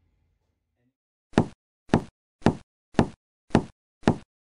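A steady series of six sharp, short knocks about two a second, starting about a second and a half in after near silence.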